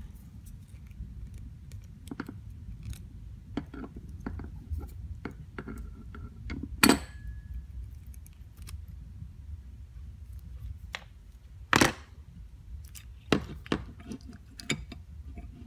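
Small metal clicks and taps as ring pliers work the internal snap ring out of a ratchet head and the drive gear is lifted out. The loudest is one sharp click with a brief metallic ring about seven seconds in, with another sharp click near twelve seconds and a run of lighter clicks after it.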